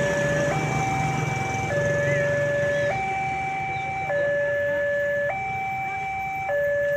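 Railway level-crossing warning siren sounding a two-tone hi-lo pattern, switching between a low and a slightly higher electronic tone about every 1.2 seconds, the signal that a train is approaching and the barrier is closing.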